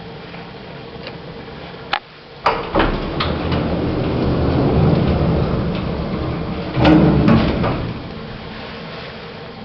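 1970s Becker hydraulic lift in operation: a low rumble with sharp clicks and clunks about two and three seconds in, and a loud clunk about seven seconds in.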